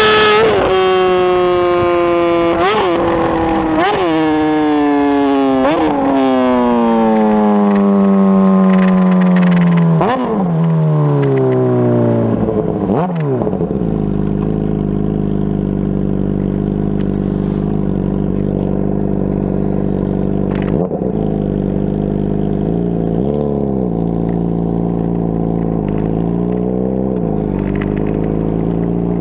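Motorcycle engine winding down from high speed, its pitch falling steadily for about thirteen seconds with several short throttle blips along the way. It then settles into a steady idle, with two brief revs near the end.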